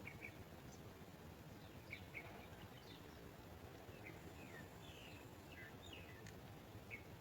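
Faint, short high-pitched bird chirps, about a dozen scattered irregularly, several sliding downward in pitch, over a low steady background rumble.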